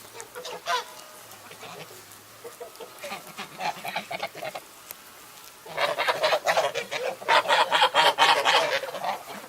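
Domestic geese honking: a few scattered calls at first, then from about six seconds in a loud, dense run of overlapping honks.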